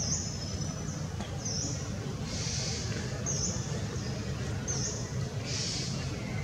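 Forest ambience: short high-pitched chirps repeating about once a second, with two longer hissing buzzes, over a steady low rumble.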